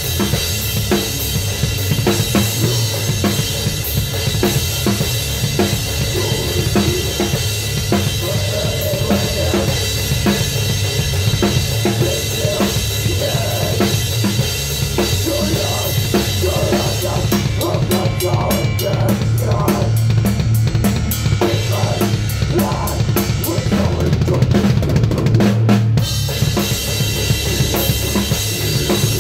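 Mapex drum kit played hard and fast close up, with kick drum and snare under the rest of a live band. From a little past the middle, the bright cymbal wash drops away for several seconds, leaving evenly spaced drum hits, then comes back near the end.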